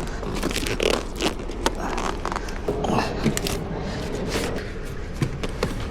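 Luggage being loaded into a car: scrapes and a string of sharp knocks as suitcases and bags are handled, over a steady low hum.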